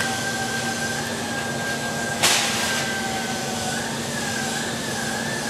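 Steady background machine hum with a high whine from workshop machinery, with a brief hissing rush about two seconds in.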